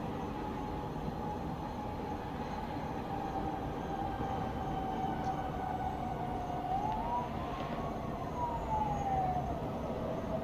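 Steady rumble of town traffic with a siren wailing over it, its pitch sliding slowly, rising about two-thirds of the way through and falling away again.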